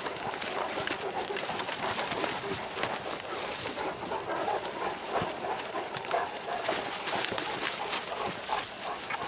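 Footsteps and rustling of leaves and brush as several Great Danes and people move along a woodland path, a steady scuffling with many small irregular crackles.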